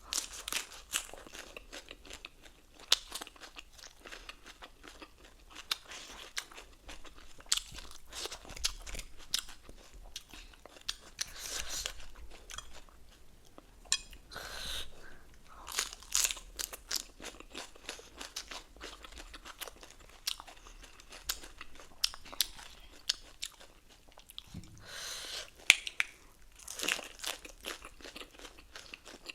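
Close-miked eating: irregular crisp crunching and chewing, the crunch of fresh lettuce leaves being bitten and chewed.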